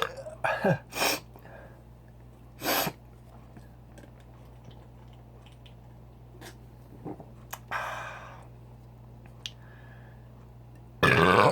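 A man's short, sharp sniffs through a runny nose, then a few faint clicks, and near the end a loud burp begins.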